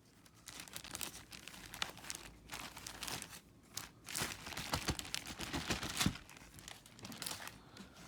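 Packaging crinkling and rustling as it is handled and unwrapped: irregular crackles that grow loudest about halfway through, with a few sharper cracks.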